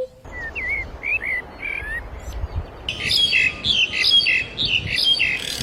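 Birds calling: first a few short, wavering whistled notes, then, about three seconds in, a louder series of harsh, squawking calls repeated about three times a second.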